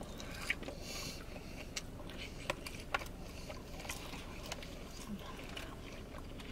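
Quiet eating sounds: forks clicking and scraping in clear plastic salad bowls, with a scattering of sharp clicks and soft chewing.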